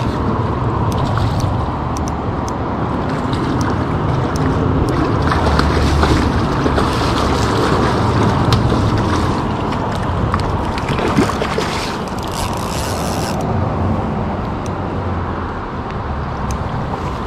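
Rushing river water with wind buffeting the microphone, a steady loud noise throughout, with scattered small clicks.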